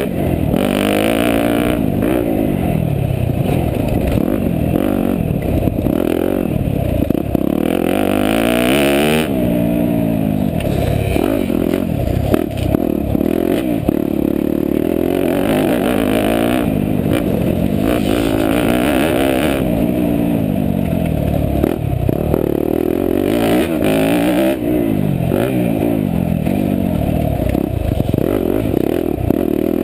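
Yamaha YZ250F four-stroke single-cylinder dirt bike engine under hard riding. It revs up and falls off over and over as the bike accelerates and slows around the track.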